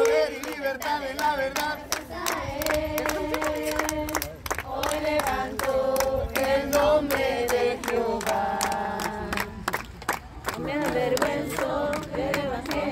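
A group of people singing a worship song together and clapping along.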